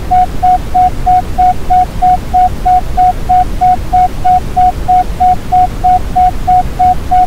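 An isochronic tone: a single steady pitch switching on and off about three times a second, pulsed at pi (3.14 Hz) for brainwave entrainment. It sits over a deep, even rush of Brownian noise.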